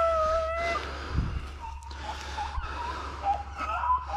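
Beagles baying while running a rabbit: one long held bawl at the start, then a wavering run of higher bays that carries on.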